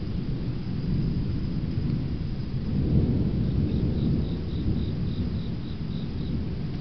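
Thunder rolling: a long low rumble that swells about three seconds in and slowly eases off. A cricket chirps at about four chirps a second through the middle.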